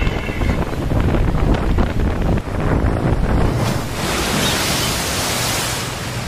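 Strong storm wind buffeting the microphone with a heavy low rumble, over rough sea. About halfway through, a loud, bright hiss rises over the rumble.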